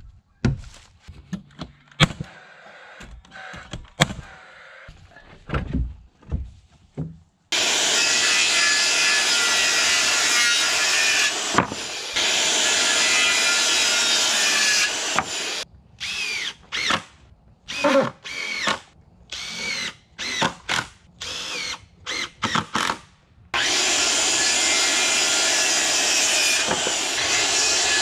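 Power tools at work on wood: a few sharp knocks at first, then a power tool running steadily for several seconds at a time. In the middle it is broken by short stop-start bursts of a drill spinning up and winding down.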